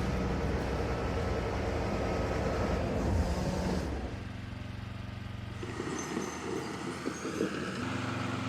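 Heavy machine engine running steadily. The sound changes abruptly about four seconds in and shifts again near the end.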